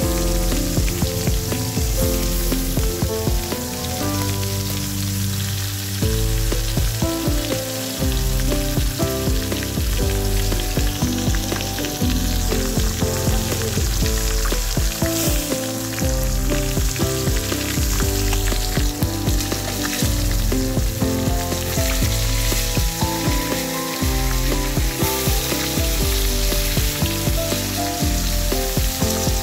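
Whole climbing perch frying in hot mustard oil in a kadai: a steady sizzle and crackle of the oil, with a spatula shifting the fish near the end. Background music runs under it, with held notes that change every couple of seconds.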